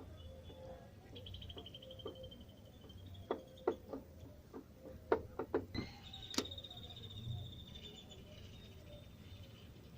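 Hyundai Atos gearbox making a strange noise: a faint high whine with a fast flutter, and a run of irregular clicks and knocks a few seconds in.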